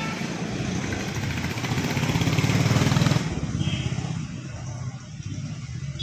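Motorbike engine running with a rapid, even low pulse. It grows louder over about three seconds, then drops off suddenly and carries on more quietly.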